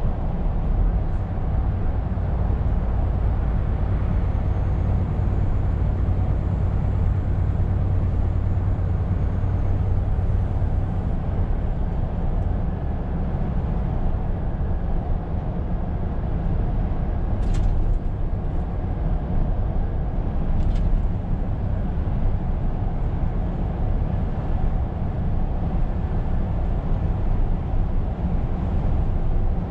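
Scania R520 truck running at a steady pace, a continuous low engine drone with road noise. Two faint clicks come in the second half.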